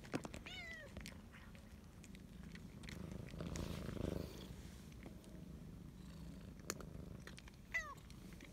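Cat purring steadily while being stroked, with a short falling meow about half a second in and another near the end. A brief rustle of handling noise comes around the middle.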